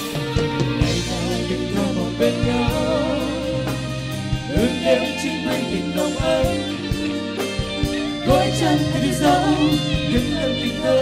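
Live band performing a medley of Chinese songs: a man and a woman singing a duet into microphones over electric guitar, drum kit and keyboard, with a steady drumbeat.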